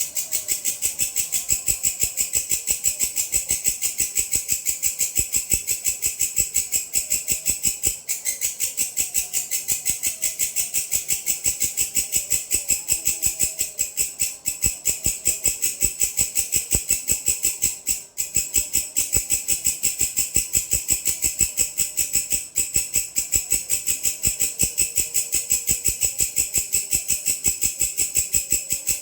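Grasshopper (belalang) stridulating: a loud, high, rasping song made of a rapid, even train of pulses, with two brief breaks. Faint short calls sound beneath it.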